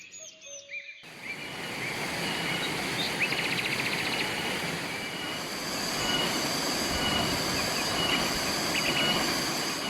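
Birds chirping, then about a second in a river's rushing water comes in suddenly and keeps up a steady loud rush, with bird chirps and a short trill still heard over it.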